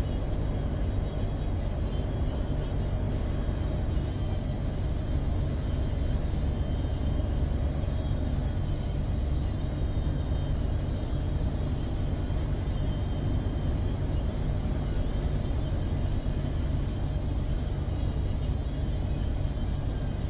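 Scania V8 truck engine running steadily under way, a deep even drone with road noise and no gear changes or sudden events.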